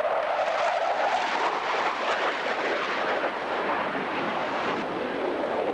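Jet noise from a Panavia Tornado's twin RB199 turbofans on a display pass: a steady rushing roar whose tone rises slightly in the first second and eases a little after about three and a half seconds.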